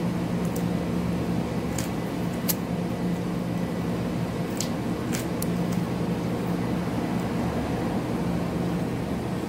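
A German Shepherd chewing a pig ear, giving a few short, sharp crunches, most of them in the first six seconds, over a steady low mechanical hum.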